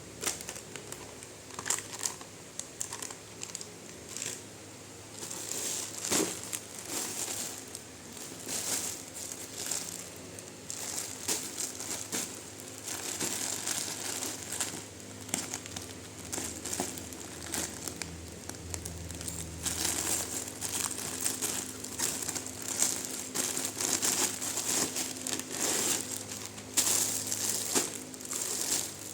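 Packaging crinkling and crackling as it is handled and unwrapped, in irregular bursts that grow louder and busier in the second half.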